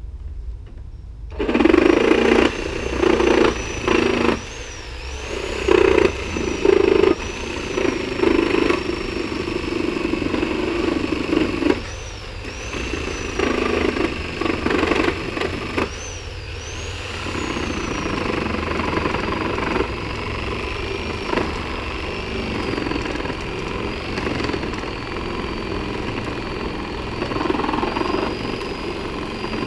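Skil 9206 corded reciprocating saw fitted with a Milwaukee nail-embedded wood-cutting blade, sawing through a pallet to break it down. It starts about a second and a half in with several short bursts on the trigger, then runs steadily. The motor's whine dips and recovers as the blade meets harder going in the thick end of the wood.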